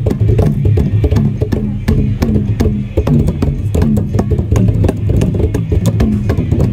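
Band music with busy percussion, wood-block-like clicks and drums, over a repeating bass line.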